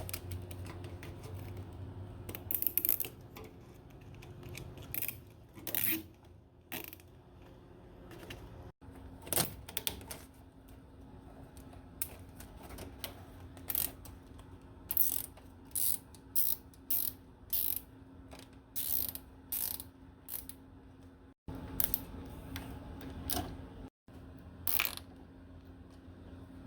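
Hand-tool work: short runs of sharp ratcheting clicks and clatter, a click every half second or so at the busiest, heard in several edited-together stretches.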